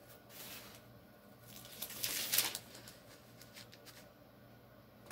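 Paper rustling as the pages of a Bible are handled, in two soft swishes, the louder one about two seconds in, over a faint steady low hum.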